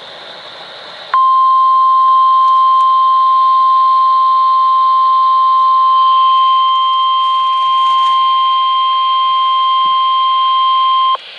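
NOAA Weather Radio warning alarm tone, the 1050 Hz signal: a single steady, loud beep that starts about a second in and holds for about ten seconds over faint radio hiss before cutting off. It signals that a warning message follows.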